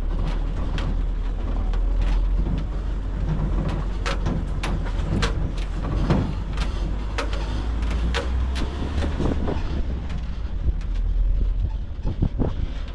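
Vehicle travelling over a rough road: a steady low rumble with frequent irregular knocks and rattles.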